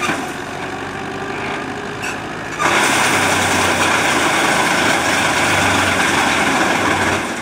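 Wood chipper running, its sound jumping suddenly louder about two and a half seconds in and holding there until near the end.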